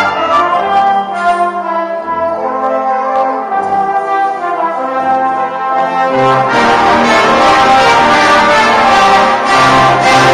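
Brass band playing live, sustained chords under a conductor. A thinner, softer passage opens out into the full band, louder and with heavy bass, about six seconds in.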